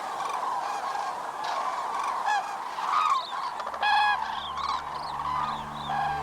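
A large flock of common cranes calling: a dense chorus of overlapping trumpeting calls, with louder single calls standing out, the loudest about four seconds in. Soft background music comes in about halfway through.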